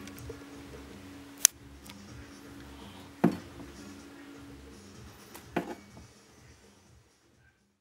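Three sharp smacks about two seconds apart, the first the loudest and the last the faintest: strikes from an angry green iguana. A faint steady hum runs underneath.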